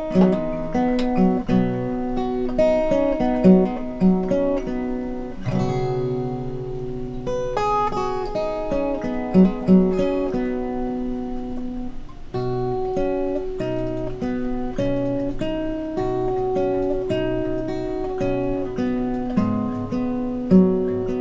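Acoustic guitar being played solo, a steady run of picked notes and chords without singing.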